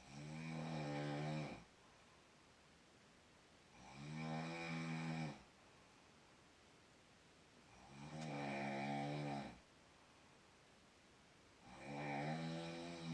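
A person snoring in a slow, even rhythm: four long snores, each about a second and a half, spaced about four seconds apart.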